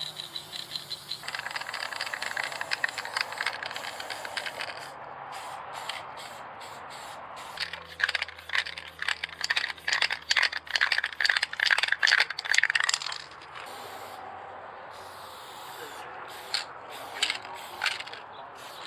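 Aerosol spray paint cans hissing as paint goes onto a wall, the spray stopping and starting. From about eight to thirteen seconds in comes a loud, fast rattling of the mixing ball inside a can.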